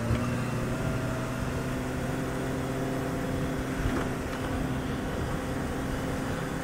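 Open safari game-viewing vehicle's engine running steadily under way at speed on a rough dirt track, with road rumble and two short knocks from the bumps.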